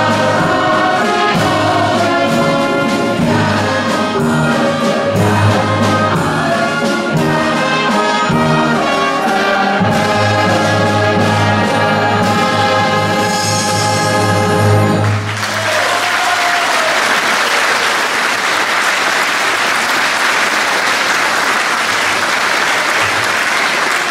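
Symphony orchestra and choir finishing a piece on a long held final chord. About fifteen seconds in the music stops and the audience breaks into applause.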